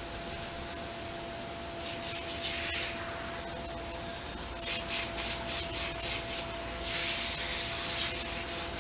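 Garden-hose spray nozzle hissing as water sprays onto a dog's wet coat. The hiss comes and goes in quick pulses for a couple of seconds midway, then runs steadier and stronger near the end.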